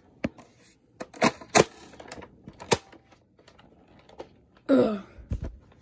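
Sharp plastic clicks and snaps of a toy Nerf blaster being loaded and fired, several in the first three seconds, followed about five seconds in by a short falling vocal sound and a couple of dull thuds.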